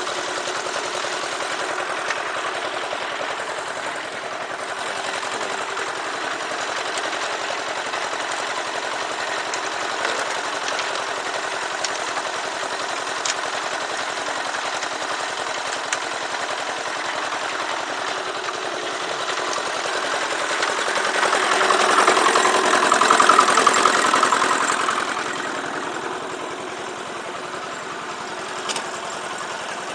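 Small stationary engine driving a portable concrete mixer, running steadily while the drum turns and pours wet concrete. The sound grows louder for a few seconds about two-thirds of the way through.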